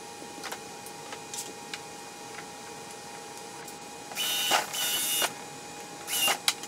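Cordless drill/driver whirring in three short runs in the second half, driving screws into well-nut inserts on a plastic kayak hull; light ticks and handling sounds before.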